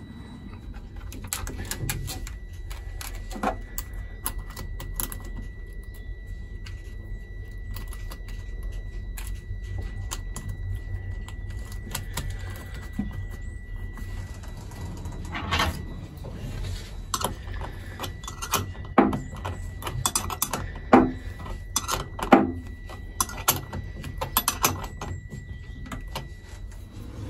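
Irregular small metallic clicks, taps and rattles of hands and tools working cables and terminals on top of lead-acid batteries, over a steady low rumble and a faint steady high whine.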